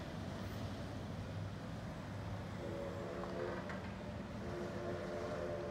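Distant steam locomotive whistle sounding a chord of several steady tones, two blasts: a short one about two and a half seconds in and a longer one from about four and a half seconds, over a steady low rumble.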